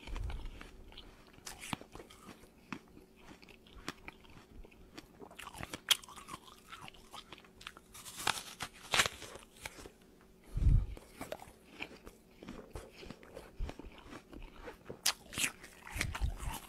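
Close-up crunching and chewing of a crisp apple: irregular bites and crunches, a few of them much louder, with a couple of short low thumps.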